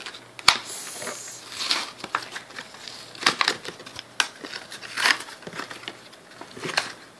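Cardboard-and-plastic toy-car blister pack being handled and pulled open, an irregular run of crinkles and sharp snapping crackles.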